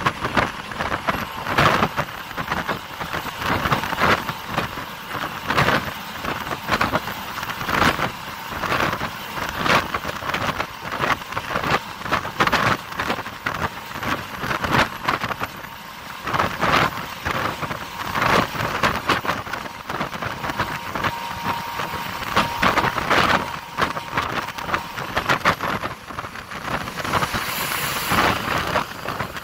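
Wind rushing and buffeting over a microphone held at the window of a bus moving at highway speed, surging unevenly every second or so over the road noise of the moving bus.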